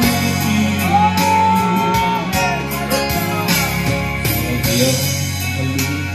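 Music with guitar accompaniment, a Christian song, playing continuously.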